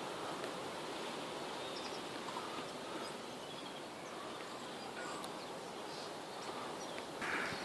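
Outdoor ambience: a steady hiss of rustling and open-air noise with faint, scattered bird chirps.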